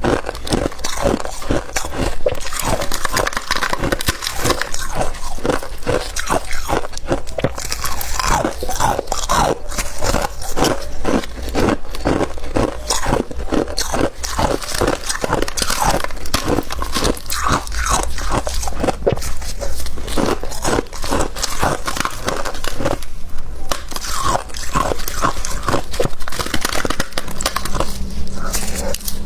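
Freezer frost being bitten and chewed close to the microphone: a continuous run of quick, crisp crunches.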